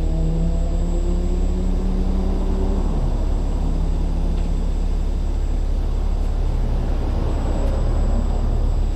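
Heavy-duty rotator wrecker's diesel engine running at raised revs, a deep steady rumble; about three seconds in the revs fall back and the pitch drops, then it runs on steadily.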